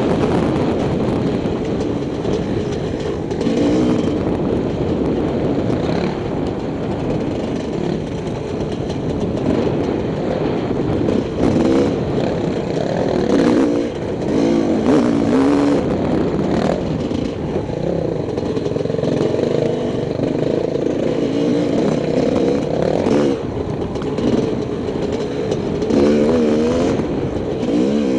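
Enduro dirt bike's engine running and being revved on and off as it is ridden along a rough trail, its pitch rising and falling with the throttle. A few knocks from the bike over bumps stand out in the middle and near the end.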